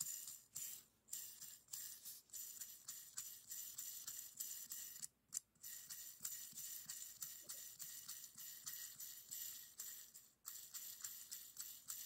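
Fingers tapping and scratching on a fidget spinner, a quick, irregular run of faint crisp clicks with a slight jingly rattle, pausing briefly about five seconds in and again about ten seconds in.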